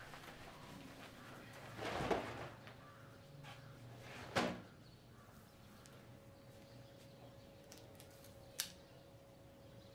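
A few scattered knocks and rustles in a quiet small room: a soft swell about two seconds in, a sharper knock a little later and a short click near the end. A faint steady tone joins about halfway through.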